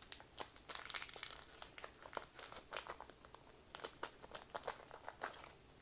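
Trading-card booster pack wrapper crinkling in faint, irregular crackles as it is opened and handled.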